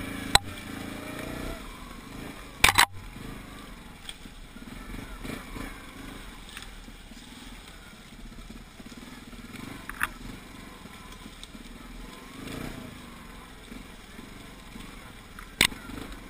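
Yamaha Grizzly 700 ATV's single-cylinder engine running at low speed while the quad pushes through dense brush, with a few sharp knocks, the loudest a double one about three seconds in.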